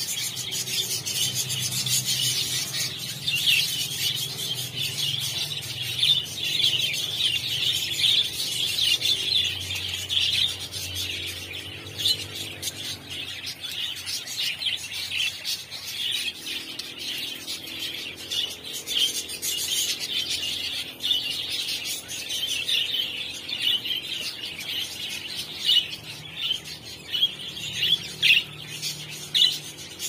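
A flock of caged budgerigars chattering and chirping, many short calls overlapping without a break, with a few louder chirps near the end.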